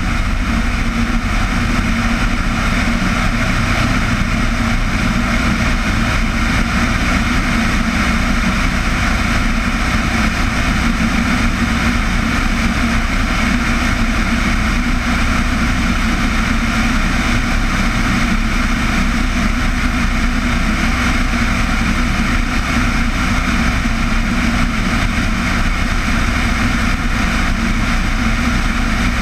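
A steady engine drone that holds the same pitch and loudness throughout, with no rise or fall.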